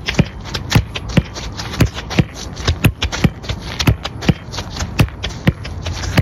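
Football kicked first-time against a concrete wall again and again. Each kick and rebound is a sharp thud, about two to three a second, with quick steps of football boots on artificial turf between them.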